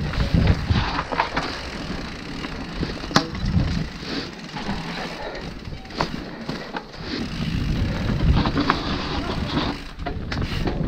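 Mountain bike riding down a dirt trail: tyres on loose dirt and the bike rattling over bumps, with wind rumbling on the camera's microphone. Sharp clacks about three and six seconds in.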